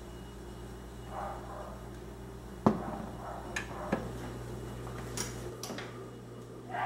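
Ceramic dinner plate set down on a stone countertop with one sharp clack, followed by a few lighter clinks of plate and cutlery, over a steady low hum.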